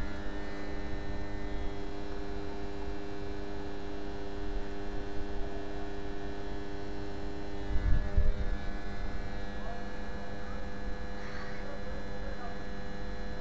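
Steady electrical hum with several overtones and a low rumbling noise beneath it, with one brief louder low knock about eight seconds in.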